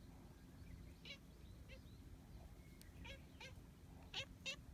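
Cat giving a series of short, chirping meows, about six brief calls, with two louder ones close together near the end.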